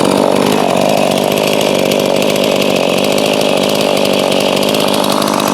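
Two-stroke chainsaw engine running steadily at speed.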